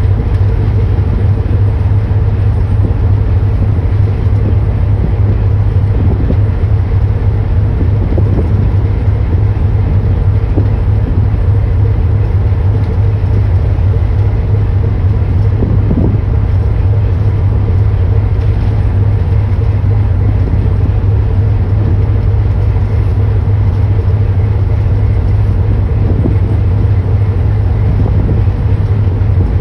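A boat's engine running with a steady low drone, unchanging throughout.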